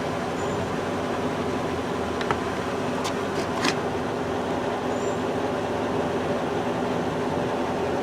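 Steady mechanical hum, with a few light plastic clicks about two to four seconds in as the turn-signal light's wiring connector is worked into place.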